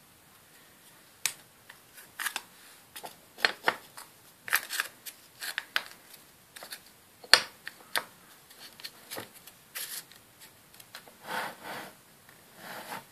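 Irregular clicks and taps of small hard objects being handled on a table top, with two short scrapes near the end, as a hand moves a ruler and a dumbbell around a magnet wheel.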